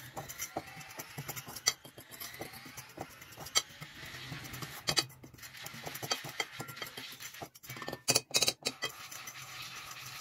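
Spoon stirring dry flour in a bowl, with irregular scraping and clicking against the bowl, and a short run of louder knocks about eight seconds in.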